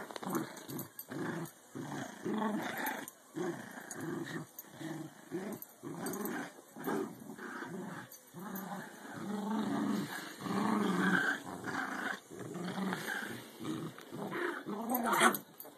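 Puppy growling in play, in a long run of short, rough, repeated growls.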